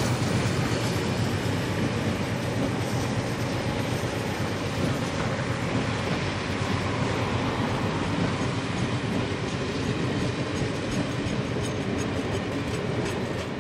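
Passenger carriages of a train passing close by: a steady rumble of steel wheels on the rails, with light clicking over the rail joints in the second half.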